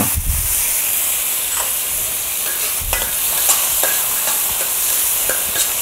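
Minced garlic and onion with chili sauce and ketchup sizzling in hot oil in a stainless steel wok, being fried until fragrant, while a metal spatula stirs and scrapes, with scattered light clicks of the spatula on the pan.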